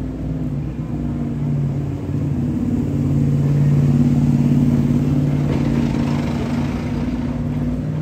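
Motor vehicle engine running close by in street traffic, a steady low drone that grows louder towards the middle and eases off near the end.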